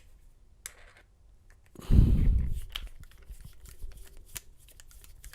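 Handling noise from a lock and tools worked by hand on a desk: scattered light clicks, with one heavy, dull thump about two seconds in.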